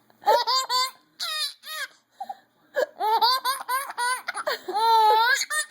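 Five-month-old baby laughing in bursts of high-pitched squeals, ending in one long wavering squeal.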